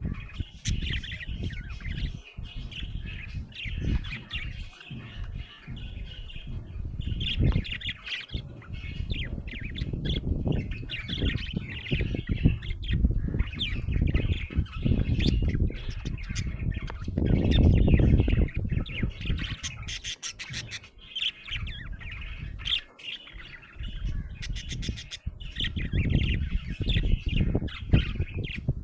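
Budgerigar chirping and chattering without a break, with runs of rapid clicks about two-thirds of the way through, over a low rumbling noise that swells around the middle.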